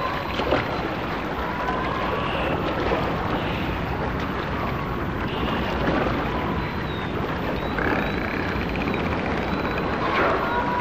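Steady wind noise on the microphone by a choppy lake, with the rush of small waves along the shore.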